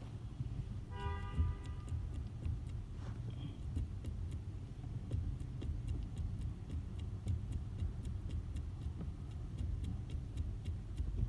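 Cabin noise of a 2008 Toyota Corolla on the move: a steady low rumble with many scattered light clicks and knocks, the kind of noise behind the owner's clunk complaint. There is a short pitched tone about a second in.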